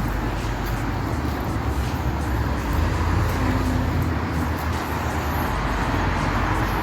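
Steady road and engine rumble of a car in motion, heard from inside the cabin.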